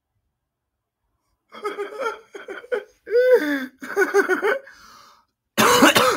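A man laughing hard in choppy, pitched bursts and wheezy breaths, starting about a second and a half in, with a louder, harsher burst near the end.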